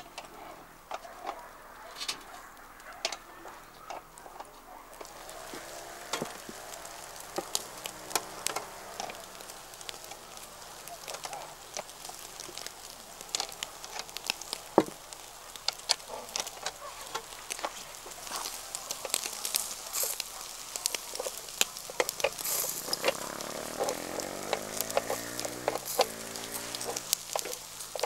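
Meat sizzling as it fries over a campfire, with frequent sharp pops and crackles throughout. The sizzle grows a little louder near the end.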